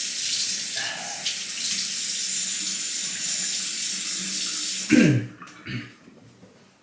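Bathroom sink tap running steadily while the face is wetted, shut off about five seconds in, followed by a couple of short sounds.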